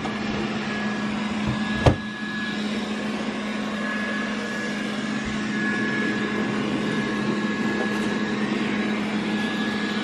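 Xiaomi S10+ robot vacuum running: a steady whir of its suction fan and brushes with a constant low hum and a thin high whine, and one short knock about two seconds in.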